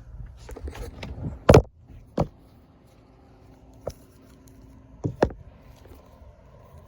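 Handling noises: rustling, then a few separate sharp knocks and clicks, the loudest about one and a half seconds in and a quick double click near the end.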